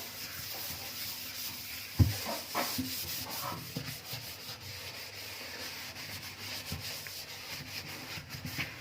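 Soapy loofah scrubbing a stainless steel kitchen sink: a steady rubbing, with one sharp knock about two seconds in.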